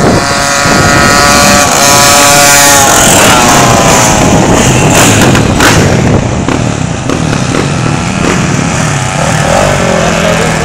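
A group of motorcycles, supermoto bikes among them, riding past in a bunch with engines revving. The engine note climbs over the first few seconds, then drops as a bike passes close about three seconds in, and the others keep running past.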